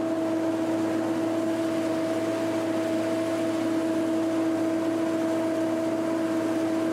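Self-propelled forage harvester running steadily while it cuts corn for feed, heard inside its cab: a constant mechanical hum with a held tone over it.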